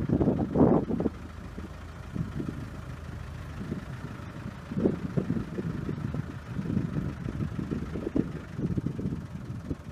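Vehicle engine running at low speed, an uneven low rumble with louder surges near the start and again from about five seconds in.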